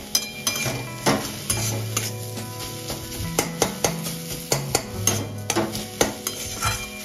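Flat metal spatula scraping and knocking against a steel wok as a thick mash of grated radish is stirred and pressed, with sharp clacks several times a second at times. Background music with held bass notes runs underneath.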